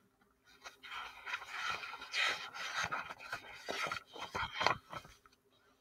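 Paper pages of a picture book being leafed through by hand: irregular rustling and flapping with small clicks. It starts just under a second in and stops after about four and a half seconds.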